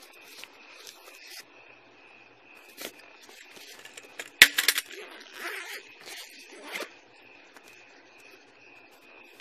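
Scraping and rustling of clothing and gear against a body-worn camera, with one sharp knock and a quick rattle of clicks about four and a half seconds in, under a faint steady high whine.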